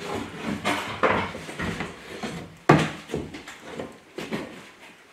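Knocks, scrapes and rustles of seats and interior trim being pulled out of a Citroen C1, with the sharpest knock about two and a half seconds in, dying away near the end.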